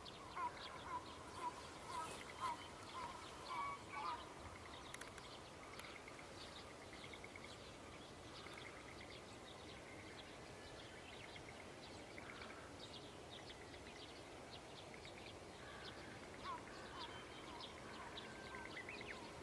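Dawn birdsong from several birds. A bird repeats a string of loud calls for the first four seconds, then fainter, quick high chirps carry on over a soft outdoor background hiss.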